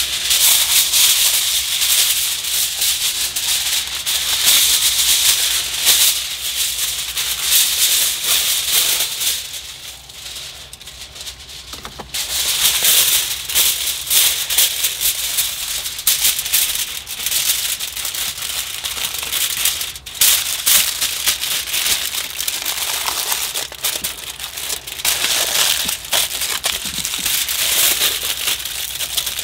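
Aluminium foil crinkling and rustling as sheets are handled and folded around a brisket, a dense, irregular crackle with a quieter lull about ten seconds in.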